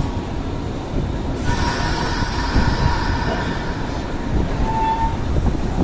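Nankai electric commuter train pulling out of a station platform: a steady low rumble. A hiss starts about a second and a half in and lasts a couple of seconds, and a brief high squeal sounds near the end.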